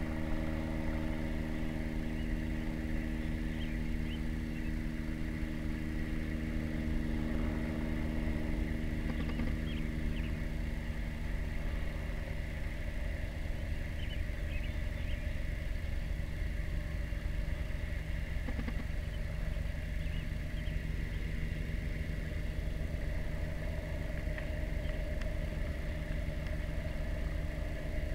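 A motor vehicle engine idling steadily, a constant low hum with a few faint high chirps over it.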